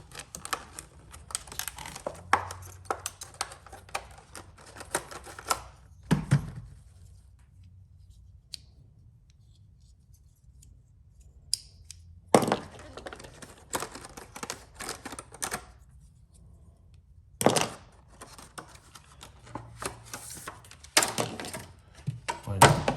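Wiper blade packaging being handled and opened: bursts of rustling and sharp clicks, with a quiet stretch of several seconds in the middle.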